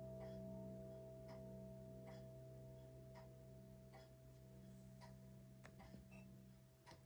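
Faint, slowly fading ring of a 1978 Howard Miller grandfather clock's chimes after it has struck eight, with the pendulum escapement ticking about once a second. A few quicker clicks come near the end.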